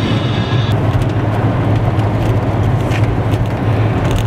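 Steady road noise inside a moving car: a low tyre and engine rumble with a hiss of wind over it.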